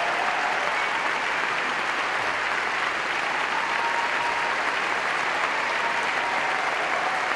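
A large audience applauding steadily, a dense, even clatter of many hands clapping.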